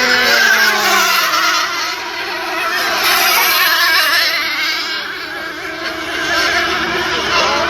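Several twin-engine nitro RC race boats running flat out, their small glow engines making a high-pitched buzz whose pitch wavers as they race around the course.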